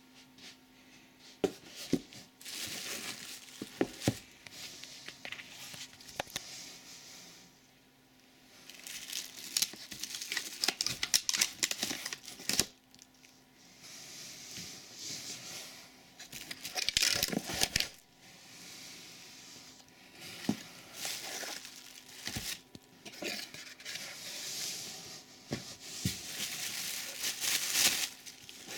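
Clear plastic packaging bags crinkling and rustling in irregular bursts as they are handled and pulled open in a cardboard box, with scattered sharp clicks and knocks.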